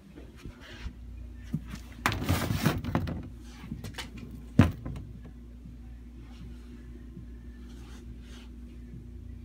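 Handling noise around a glass-fronted reptile enclosure: a rushing scrape about two seconds in and a single sharp knock just before five seconds, then a faint steady hum.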